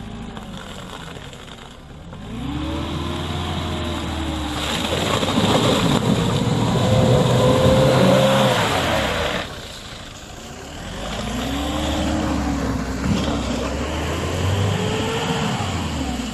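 Mitsubishi Pajero Sport's engine revving hard off-road in two long surges, pitch climbing and falling, with a dip to a lower rev between them and a rushing noise over the first surge. The 4x4 is straining in a diagonal axle twist with a wheel hanging and no centre diff lock.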